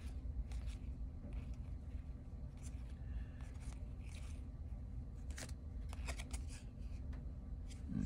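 Paper trading cards being handled and slid one over another, with scattered soft scrapes and flicks.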